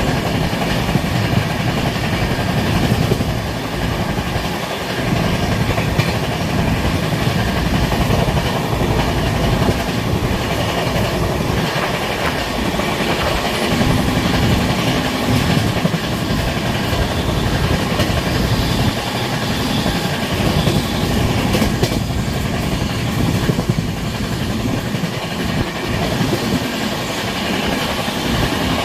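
Indian Railways passenger coach running at speed, heard at its open doorway: a loud, steady rumble of wheels on rails.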